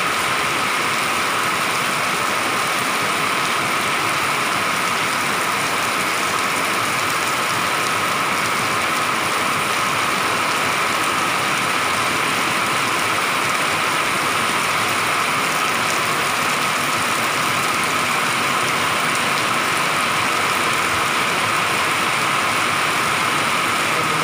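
Heavy tropical downpour: loud, steady rain falling on roofs, vehicles and pavement, an unbroken hiss with no let-up.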